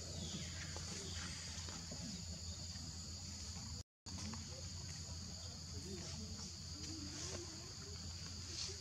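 Steady high-pitched insect chorus over a low steady hum. The sound cuts out completely for a split second about four seconds in.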